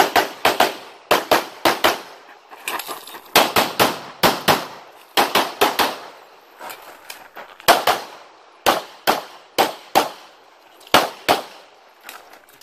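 Handgun shots fired rapidly in quick strings of two to six, with short pauses between strings as the shooter moves to new positions.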